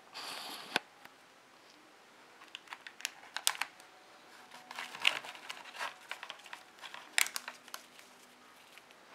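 Clear plastic packaging being handled: a short rustle ending in a sharp click, then bursts of quick crackling clicks as the stiff plastic flexes and crinkles.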